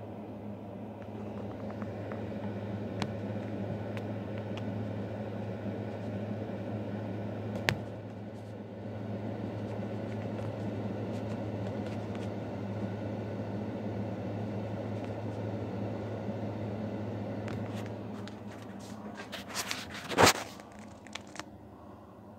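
Panasonic WhisperLite ceiling exhaust fan running with a steady hum and rush of air, which seems to be at a reduced speed. The sound falls quieter after about 18 seconds, and a few sharp clicks come near the end, the loudest about 20 seconds in.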